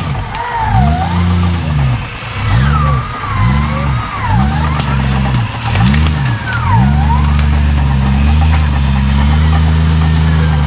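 Off-road Jeep Cherokee's engine revved up and down about once a second, then held at high revs from about seven seconds in, as it churns through deep mud.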